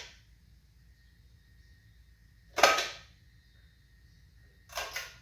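A few short scraping rattles, the loudest about two and a half seconds in and more near the end, over a faint steady high hum.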